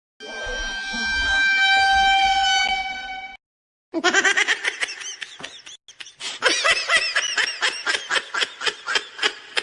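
Comedic meme sound effects. First a long, steady horn-like honk lasting about three seconds. After a brief gap comes a rapid, high-pitched cackling laugh made of many short bursts, several a second.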